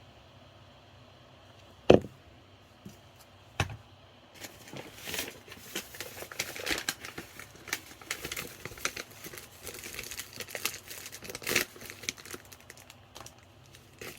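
Something crinkly being handled and crumpled at close range: a sharp knock about two seconds in and a smaller one a second and a half later, then several seconds of irregular crinkling and rustling.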